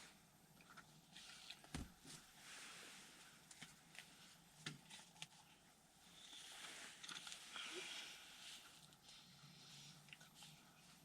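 Near silence: faint rustling with a few soft knocks, the loudest about two and five seconds in.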